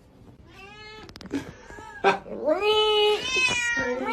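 A cat meowing repeatedly in drawn-out, arching calls, the loudest one in the middle, with a sharp knock about two seconds in.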